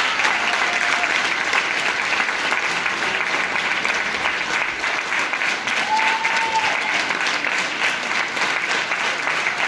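Audience applauding steadily, with a brief high held tone about six seconds in.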